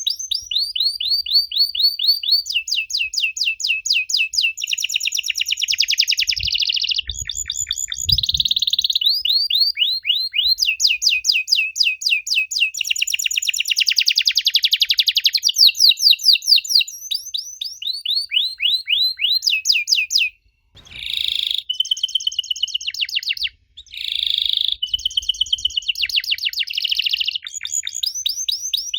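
Canary singing a long song of fast rolling trills, switching from one run of rapid repeated notes to another every second or two. It breaks off briefly twice in the last third.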